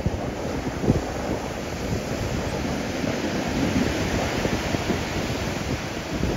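Rough sea surf breaking and washing up a shingle beach, with wind buffeting the microphone in gusts.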